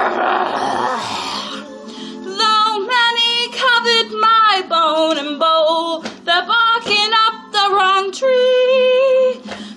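A woman gives a raspy dog-like growl lasting about a second and a half, then sings wordless phrases that slide up and down in pitch, with a few long held notes near the end.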